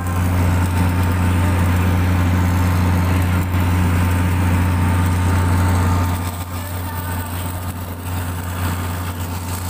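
Steady low engine drone of construction-site machinery running without a break, a little quieter from about six seconds in.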